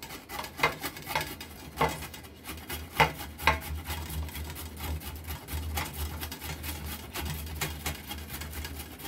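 A carrot being grated on a stainless-steel box grater: quick, repeated rasping strokes, with a few sharper clicks of the grater in the first few seconds.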